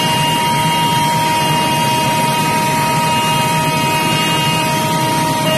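Cab noise of a WAP-7 electric locomotive running at high speed: a steady, loud rumble and rush with a constant high whine over it. The whine drops to a lower pitch right at the end.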